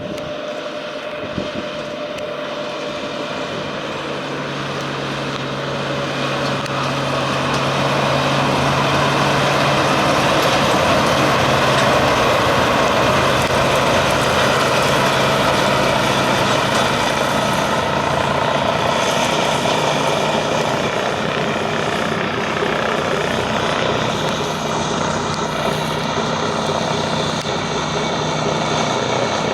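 Tractor engine and McHale 660 variable-chamber belt round baler running together at work. The sound is continuous and grows louder over the first ten seconds, then holds steady with a constant low hum.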